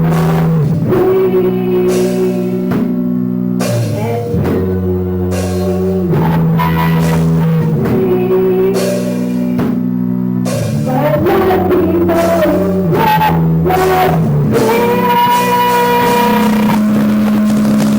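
Rock music: a band with guitar, bass and drums playing sustained, changing chords, with a voice singing over them.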